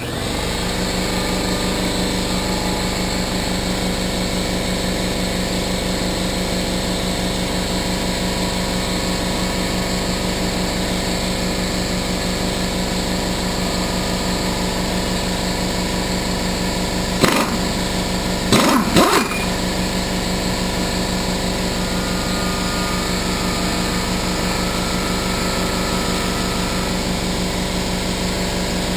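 Shop air compressor starting up and running steadily with a low, even hum, refilling its tank after the air ran low from impact-gun use. A few brief sharp knocks sound over it about 17 and 19 seconds in.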